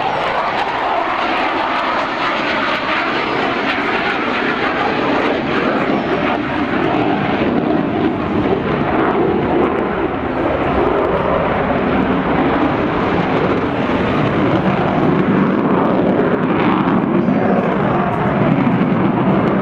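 Avro Vulcan bomber's four Rolls-Royce Olympus turbojets running loud and steady as the delta-wing jet flies past and climbs away, a dense jet rumble that grows a little louder in the second half.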